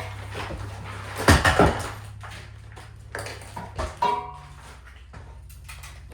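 A few knocks and clattering sounds in a small room, loudest just over a second in, over a low steady hum, with a short pitched sound near four seconds in.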